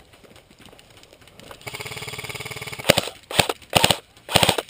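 Airsoft electric gun firing on full auto: a rapid, even burst starting about one and a half seconds in and lasting just over a second, followed by several shorter, louder bursts.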